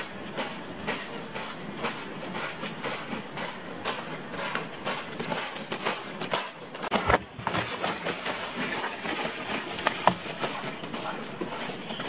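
Footsteps crunching through dry leaf litter and brushing through forest undergrowth, an irregular run of crackles with a couple of louder crunches about seven and ten seconds in.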